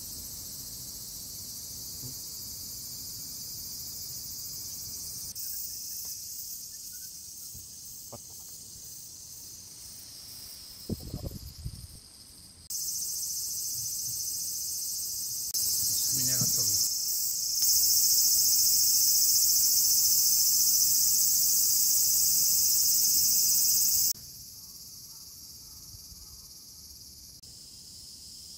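Steady high-pitched shrilling of a summer insect chorus, growing louder through the middle and dropping off abruptly a few seconds before the end. A brief thump sounds about eleven seconds in and a short call about five seconds later.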